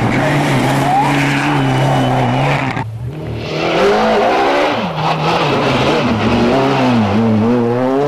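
Rally car engines on a gravel stage. First a Mitsubishi Lancer Evo's turbocharged four-cylinder holds high revs through a slide. After a break about three seconds in, a Peugeot 206 S1600's four-cylinder revs drop and climb again several times as it brakes and accelerates past.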